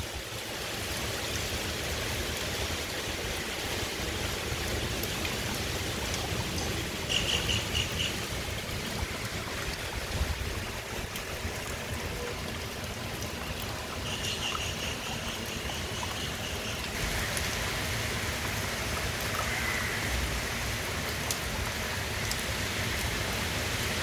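Heavy, steady rain falling on trees and tiled roofs, with wind gusts rumbling on the microphone. Short high chirps sound over it twice, about a third of the way in and past the middle.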